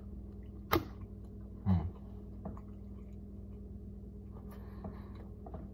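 Faint chewing and mouth noises from eating a taco, over a steady low hum, with a sharp click just under a second in and a brief low hum of the voice near two seconds.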